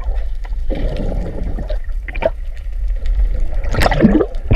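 Water sloshing and gurgling as picked up by a camera held underwater, over a steady low rumble, with a louder gurgle about four seconds in.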